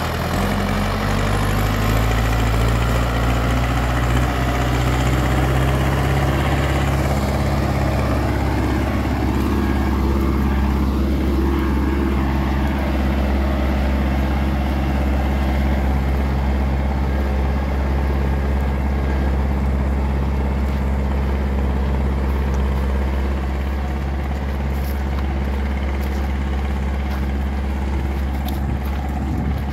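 Zetor 7340 Turbo tractor's four-cylinder turbo-diesel engine running steadily while pulling a plough; its note climbs over the first couple of seconds and then holds.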